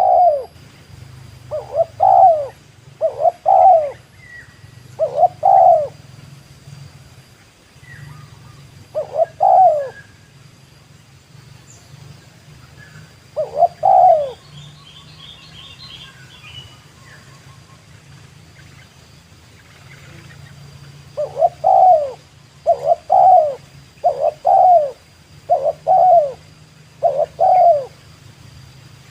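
Spotted dove (tekukur) cooing: about a dozen short coos, mostly in quick clusters, with a long pause midway before a faster run of calls near the end. Faint small-bird chirps and a brief high trill come in between.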